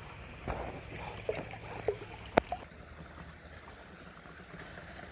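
Pool water splashing and lapping as a Dalmatian puppy paddles. There are several small sharp splashes in the first half, the loudest about two and a half seconds in, then only gentle lapping.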